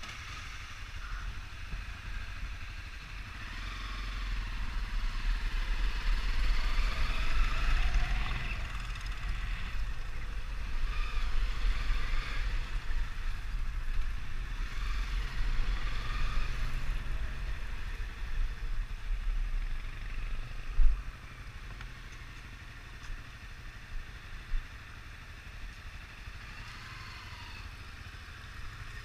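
Honda 250 motorcycle engine running while being ridden. It gets louder a few seconds in and quieter after about twenty seconds, with a single sharp knock just after that.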